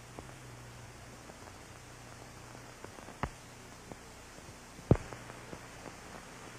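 Steady hiss and low hum of an old recording's background noise, with faint scattered ticks. Two sharp clicks come about three and five seconds in, the second the louder.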